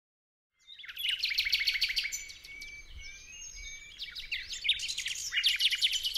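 A flock of small birds chirping and twittering in a dense, rapid chatter. It starts under a second in, thins out in the middle and grows loud again near the end.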